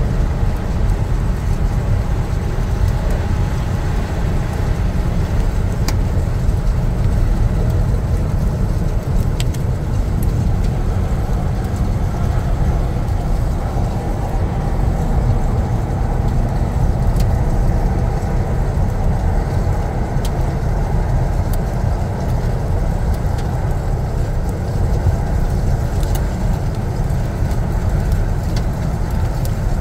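Steady low rumble of vehicle, road and wind noise picked up by a dash camera's microphone behind a convoy of heavy snowplows, with a few faint ticks scattered through.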